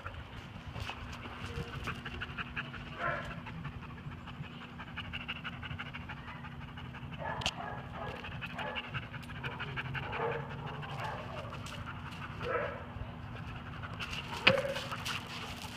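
German shepherd panting steadily during rough play with another dog, with a few short dog vocal sounds in between, the loudest near the end.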